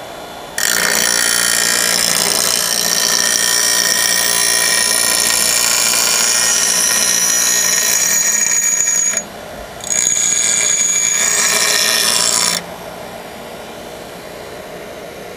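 Steel lawn mower blade pressed against a running 6-inch bench grinder wheel, grinding the nicks out of its cutting edge: a loud harsh hiss with a high steady whine. It comes in two passes, one of about eight seconds and, after a short break, one of about three. Near the end only the grinder motor's running hum is left.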